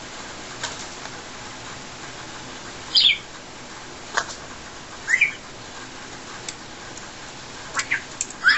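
Congo African grey parrot giving three short, high whistled calls that slide in pitch, about three, five and eight and a half seconds in, with a few sharp clicks between them.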